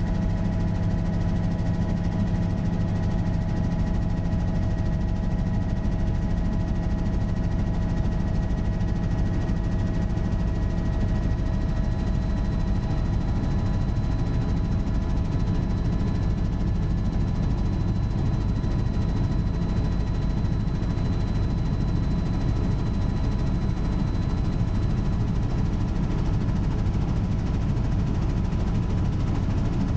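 Helicopter in cruising flight heard from inside the cockpit: a steady drone of engine and rotors with several constant humming tones. A faint high whine comes in for about twelve seconds midway.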